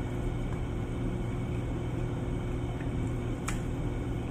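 Steady low background hum, with a single faint click about three and a half seconds in.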